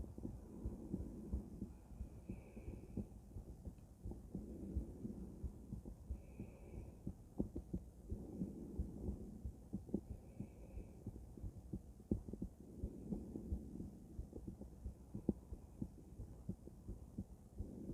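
A woman's heartbeat heard through a stethoscope and microphone: steady paired lub-dub thumps, roughly one beat a second, over a low rumble.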